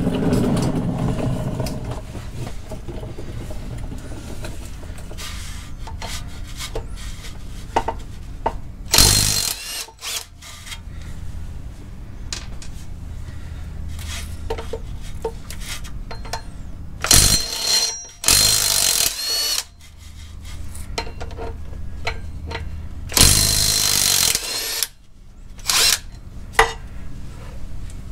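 Cordless impact wrench running in about four short bursts, each a second or so long, undoing the flywheel bolts. Small metal clinks come between the bursts.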